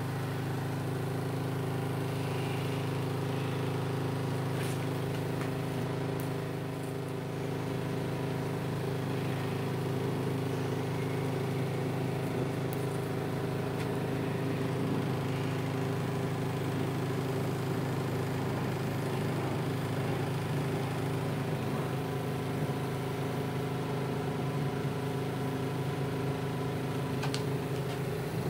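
Microwave-oven transformer humming steadily under load while its high voltage burns a Lichtenberg fractal into a wooden board. A few brief crackles come from the arc and flame burning along the wood.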